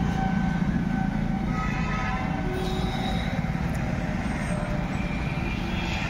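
Massey Ferguson 241 DI tractor's diesel engine idling steadily at close range.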